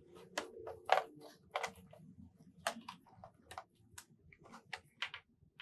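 Handling of an Audionic Supreme X-20 Bluetooth neckband and the moulded plastic tray of its box as the neckband is pulled out. About a dozen light, irregular clicks and rustles.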